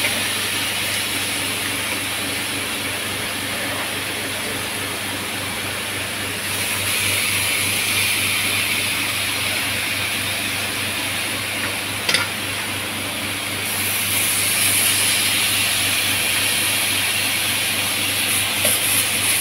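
Beef rib strips sizzling on a hot ridged grill pan: a steady hiss that gets louder about six seconds in and again near fourteen seconds, with a single click a little after twelve seconds.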